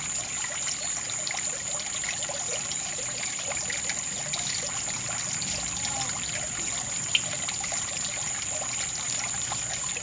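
Water trickling steadily, with small drips and splashes, under a thin, high, unchanging tone.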